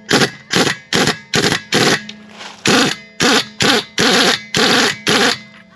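Impact wrench fired in short bursts, about eleven quick rattling blasts at roughly two a second with a short break partway, running lug nuts onto a wheel.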